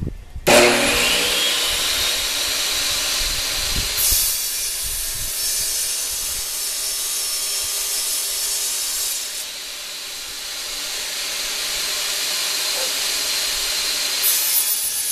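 Table saw starting up about half a second in, its pitch rising briefly, then a steady loud hiss while it rips a sheet of plexiglass.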